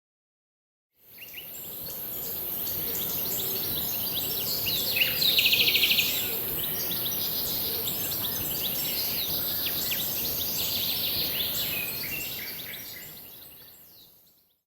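Several birds singing and calling, with a fast trill about five seconds in as the loudest call, over a steady high hiss.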